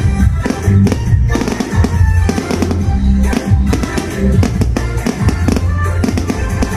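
Fireworks going off in quick, crackling bangs over loud music with a heavy drum beat and bass line.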